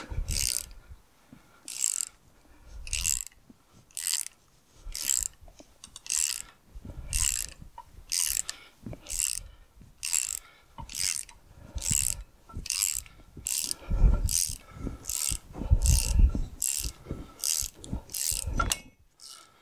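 Socket ratchet wrench clicking in short, regular strokes, roughly one to two a second, with a few dull knocks later on. It is winding in jacking bolts that force the tractor's final drive assembly apart.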